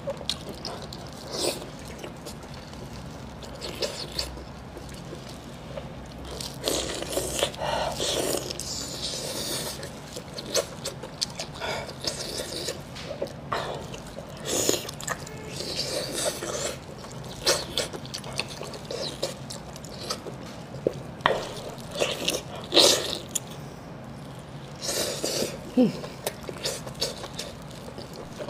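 Close-miked eating sounds: wet chewing, lip smacking and slurping of chili-oil-soaked pork intestine, coming in irregular short bursts.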